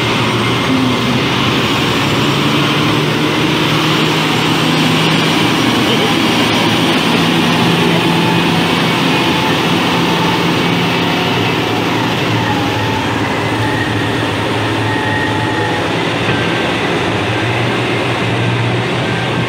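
Large mining haul truck's diesel engine running steadily, a loud even noise with a low hum underneath.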